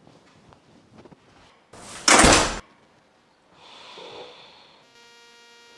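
A door banging shut about two seconds in, one loud hit that stops sharply. A fainter rustle follows, then a steady electrical hum starts near the end.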